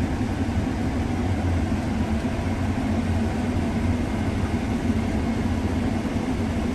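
Combine harvester running steadily while cutting wheat: an even engine and machinery drone with a low hum.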